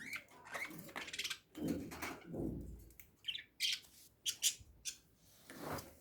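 Birds squawking and chirping in a series of short, separate calls, with a few sharp high chirps in the middle.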